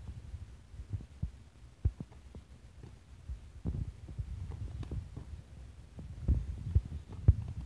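Irregular dull thumps and low rumble from two people sparring in MMA gloves on grass: footwork and gloved punches. A few sharper thuds stand out about two seconds in and near the end.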